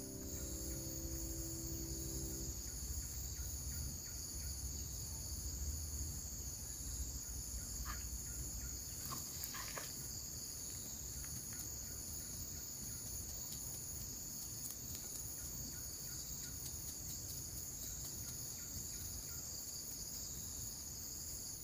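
Chorus of insects, crickets among them, making a steady high-pitched drone with a fast, even pulsing trill above it.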